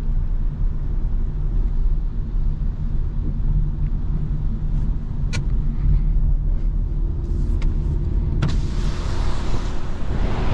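Renault Clio V's 1.0 TCe three-cylinder petrol engine and tyres droning low and steady inside the cabin while driving in town. About eight and a half seconds in there is a click and the driver's power window goes down, letting in a much louder rush of road noise from outside.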